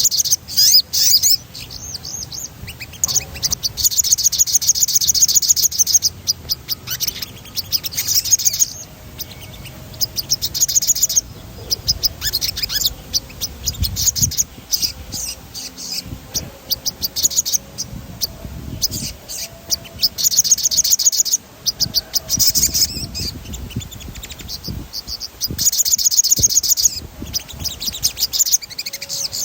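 Sogon, a small songbird, singing vigorously in rapid, high, rolling trills. Each trill lasts a second or two and they come again and again with short gaps between.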